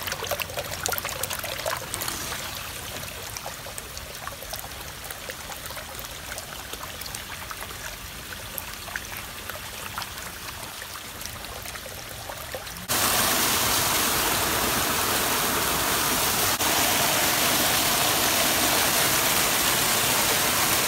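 Heavy-rain runoff water trickling and splashing along a concrete gutter, with many small splashes. About two-thirds of the way through it changes suddenly to a much louder, steady rush of fast-flowing muddy floodwater.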